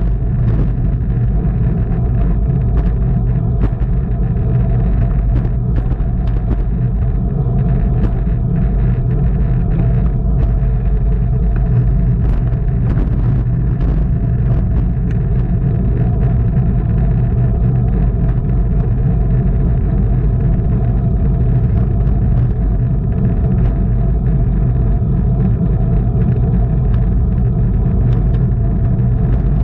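Steady wind rumble over the microphone of a camera riding on a racing bicycle at race speed, mixed with tyre and road noise. There is a faint steady hum and scattered faint clicks throughout.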